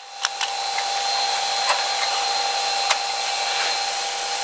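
A steady machine whir with a thin high whine, with a few light clicks and knocks as a rubber drain hose is worked loose from a commercial washer's drain valve.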